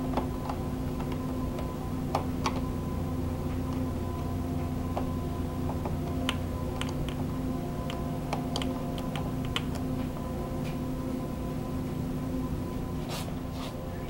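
Scattered clicks and light taps, irregular and sharp, of hand tools and plastic panel parts being worked on a scooter, over a steady low hum.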